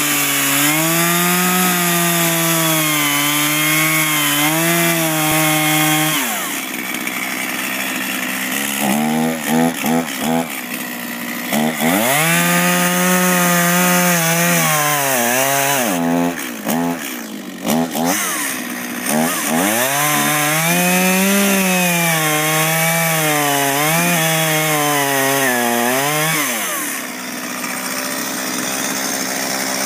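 Two-stroke Echo chainsaw cutting into a thick wooden beam: three long cuts with the engine held under load, and between them the engine drops off and is blipped up in short, quick revs. Near the end it falls back toward idle.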